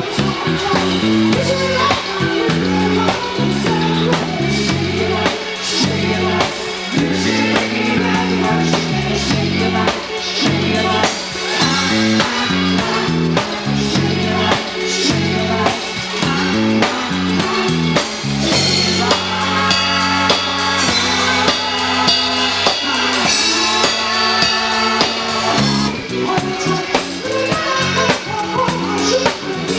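Live dance band playing, with a drum kit keeping a steady beat under a moving bass line; held chords come in about two-thirds of the way through.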